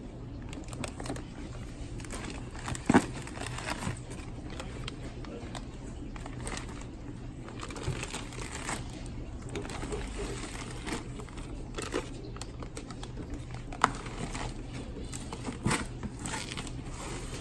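Plastic fish-shipping bags crinkling and rustling as they are handled in a styrofoam-lined cardboard box, with a few sharp knocks from the box and lid being moved, the loudest about three seconds in.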